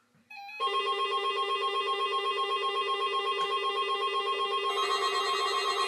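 Weather radio receivers sounding their alert alarm for a Required Weekly Test: a loud electronic warbling tone pulsing several times a second, with a second, higher alarm tone joining near the end.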